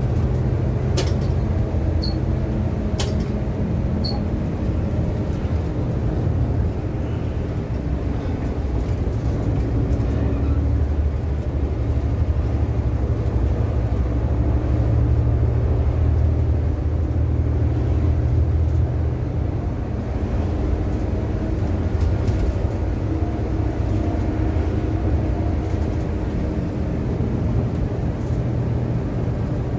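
A car driving along a road: a steady low drone of engine and road noise, with a few light ticks in the first few seconds.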